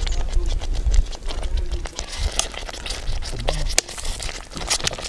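Groundnut sauce with sweet potatoes simmering in a pot over a wood fire, with irregular pops and crackles. A low rumble sits under it and drops away about four seconds in.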